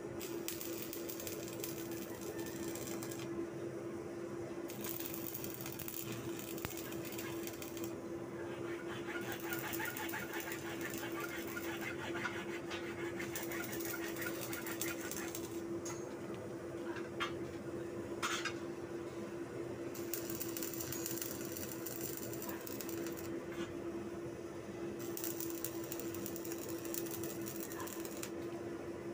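Arc welder crackling and sizzling in runs of a few seconds with short breaks, as joints on a steel-bar crate frame are welded. A steady hum runs underneath, and there are two sharp clicks a little past the middle.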